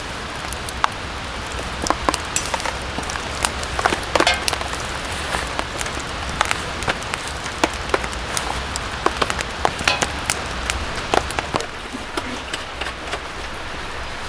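Rain falling on a tent: a steady hiss with irregular, sharp drops tapping on the tent fabric.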